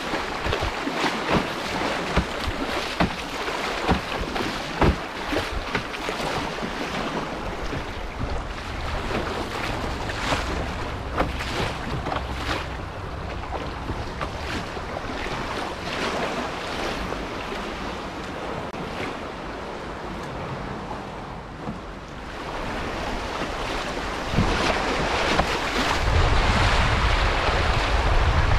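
Fast, swollen floodwater river rushing and splashing around a canoe, with sharp splashes of paddle strokes. Wind buffets the microphone, rumbling more heavily near the end.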